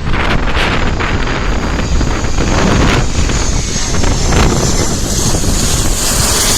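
Strong typhoon wind buffeting the microphone in gusts, with a high hiss that builds toward the end.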